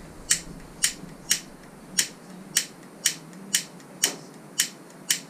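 Two-burner caravan gas hob's spark igniter clicking steadily, about twice a second, with ten sharp clicks, as the burner knob is held in to light the gas.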